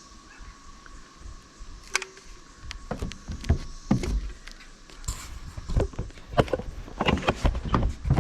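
Irregular clicks, knocks and low thumps of hand work on the tank roof while its seams are being sealed, sparse at first and coming thicker from about three seconds in.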